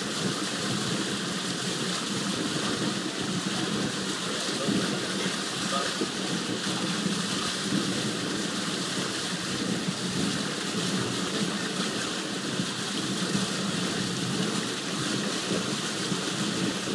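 Muddy water swirling in a whirlpool and rushing down into a drain opening, a steady, even rushing noise that does not let up.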